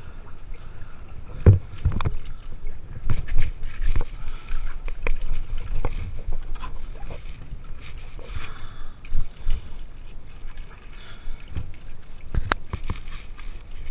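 Water sloshing and splashing in a flooded boat cabin as hands and body move through it, with scattered knocks and thumps against the hull, the loudest about a second and a half in and again near the end.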